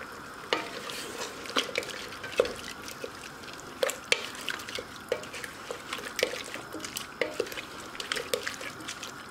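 Wooden spatula stirring chunks of vegetables and chicken through a wet, thick curry in a steel pressure cooker: irregular wet squelches and soft knocks against the pot, several a second.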